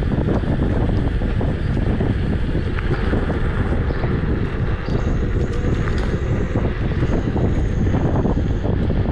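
Wind noise on the microphone while riding an Emove Cruiser electric scooter: a loud, steady rumble.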